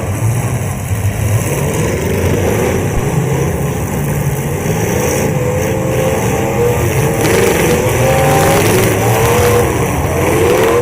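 Several full-size demolition derby cars' engines revving together, their pitches rising and falling over one another over a steady rumble.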